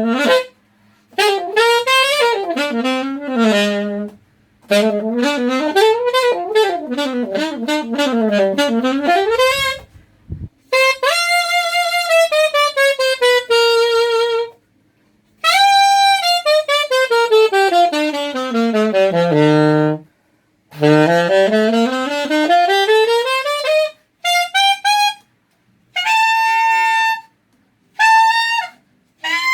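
A Suzuki alto saxophone played dry, with no reverb or effects. It plays fast scale runs up and down its range in short phrases broken by pauses, including long descending runs to its lowest notes, and ends on a few shorter held notes.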